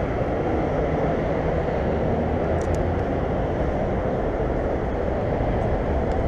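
Steady rumble of road traffic on a busy city street, engines and tyres running close by.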